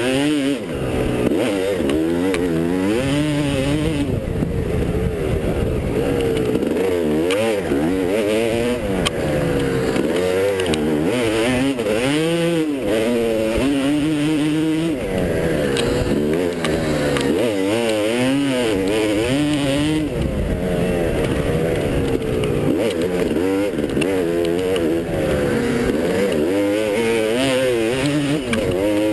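250 cc dirt bike engine revving hard at close range, its pitch climbing and dropping over and over with the throttle.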